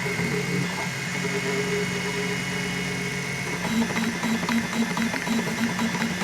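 M3D Micro 3D printer's stepper motors humming as the print head and bed move during a print. Steady tones shift about three and a half seconds in to a pulsing note with light ticks.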